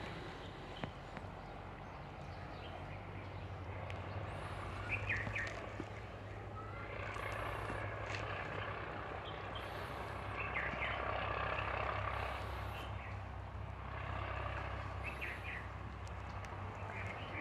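Outdoor background noise: a steady low hum under a rushing haze that swells and fades, with short bird chirps every few seconds.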